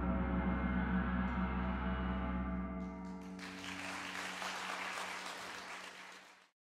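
The final stroke of a percussion ensemble rings out as a chord of sustained metallic tones, fading away. About three and a half seconds in, audience applause starts, then cuts off abruptly near the end.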